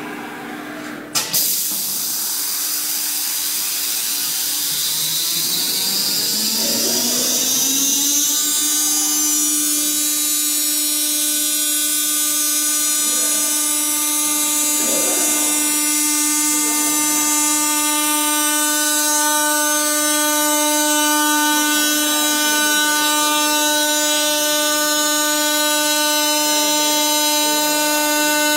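Automatic-tool-changer spindle of a CNC router. A sharp burst about a second in, then the spindle spins up with a whine rising in pitch for about seven seconds. After that it runs at a steady high whine as it routes the board.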